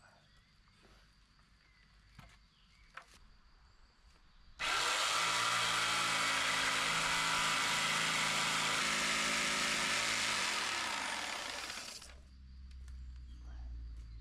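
Electric power saw switched on and cutting through wood for about seven seconds, then its motor winding down. It starts suddenly after a few faint taps.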